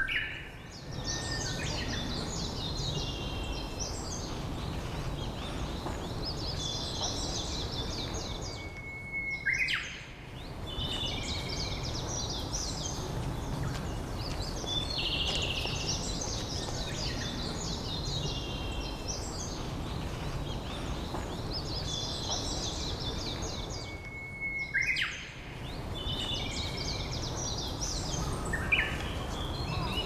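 Japanese robin singing its 'hin-kara-kara-kara' song several times: each song is a held whistle followed by a fast rattling trill, with many higher chirps between songs over a steady hiss.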